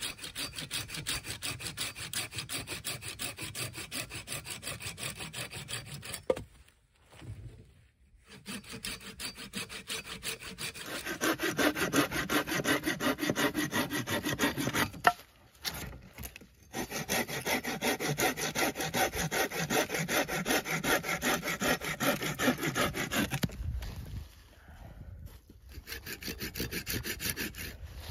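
Folding pruning saw cutting through dry wood in quick back-and-forth strokes, stopping briefly three times.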